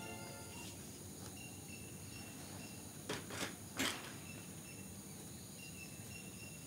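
Faint rural outdoor ambience: short high chirps repeating at one pitch, with three brief noisy sounds about three to four seconds in. The tail of music fades out at the very start.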